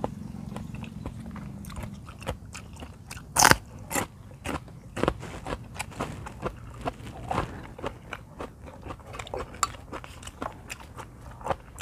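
Close-miked chewing: irregular wet clicks and smacks of a mouth working on food, with one much louder sharp click about three and a half seconds in.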